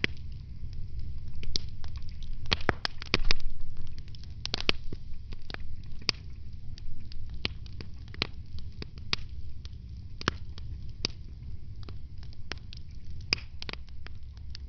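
Wood fire crackling in a fireplace: irregular sharp pops and snaps over a steady low rumble, with a dense burst of pops about three seconds in.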